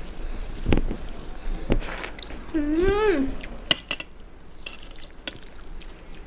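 Eating at a plate of rice and fish curry: scattered sharp clicks and clinks of dishes among soft mixing and eating noises. A short hummed vocal sound, rising then falling in pitch, comes about three seconds in.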